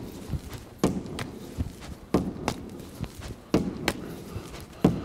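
Lacrosse wall ball: a rubber ball smacks a block wall four times, about once every second and a half. Each hit is followed a moment later by a quieter catch in the stick's pocket. The hits echo in a large hall.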